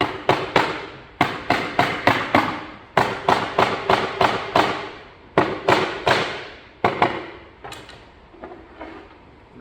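Rubber mallet knocking a phenolic racking shelf's tenons into the end panel: about twenty sharp thuds in quick runs of three to seven, growing fainter and sparser near the end.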